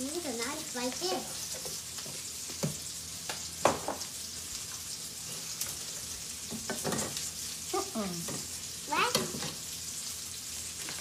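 Food frying in a pan, a steady sizzle throughout. Over it are a few short vocal sounds with sliding pitch and a couple of sharp clicks.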